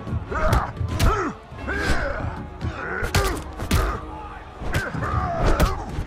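Film fight soundtrack: a rapid, irregular series of punch and kick impact sound effects, about ten in six seconds, with short grunting vocal sounds between them and music underneath.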